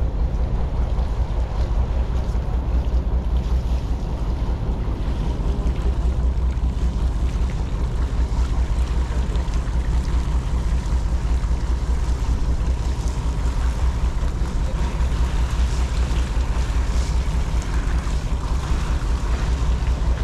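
Steady low rumble of wind buffeting the microphone on an open fishing boat, with the hiss of sea water washing along the hull as the net is paid out over the side.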